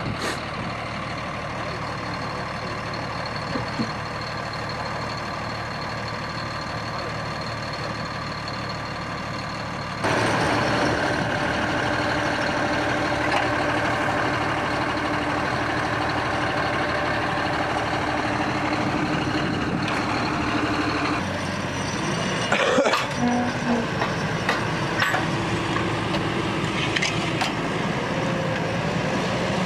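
Diesel engines of farm machinery, a telehandler and a tractor, running steadily under load while pulling machines stuck in mud out of a field. The engine sound shifts abruptly about ten seconds in and again about twenty-one seconds in, with a few sharp knocks or clanks soon after the second change.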